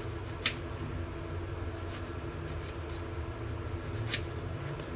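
Kitchen knife cutting through a raw potato onto a cutting board: two short knocks about three and a half seconds apart, over a steady low hum.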